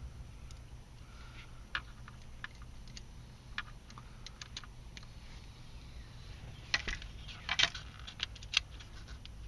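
A screwdriver and small screws clicking against a plastic center-console plate as the last tiny screws are driven in. Scattered light clicks and ticks, with a brief burst of louder rattling about seven seconds in, over a faint steady low hum.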